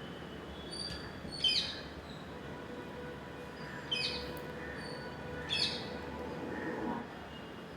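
Bird calls: three short, loud calls spaced a couple of seconds apart, with fainter short chirps between them.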